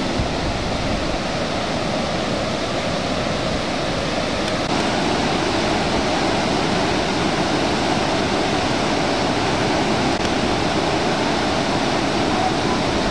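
Waterfall: the steady, loud rush of falling water, an even wash of noise that grows slightly louder about five seconds in.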